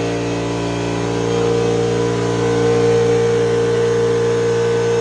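A motor-driven machine running steadily at one constant pitch, getting a little louder after about a second.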